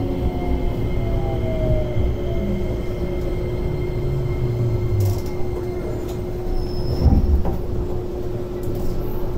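Keio 8000 series electric train, heard from inside the car, slowing to a stop at a station: the whine of its Hitachi IGBT inverter and traction motors falls in pitch over the first few seconds above the wheel and body rumble. A steady hum runs on, and there is a brief low thump about seven seconds in.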